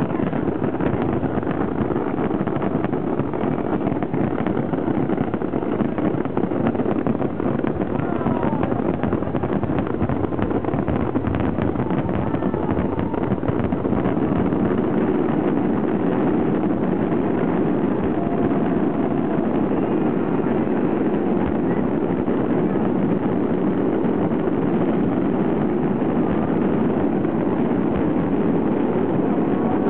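Aerial fireworks in a dense continuous barrage: shell bursts and crackle follow one another so fast that they run together into one unbroken din.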